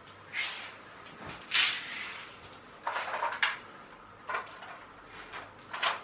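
Hard plastic toy train carriages and track pieces being handled and set down on a wooden parquet floor: a series of short clacks and knocks, the loudest about one and a half seconds in.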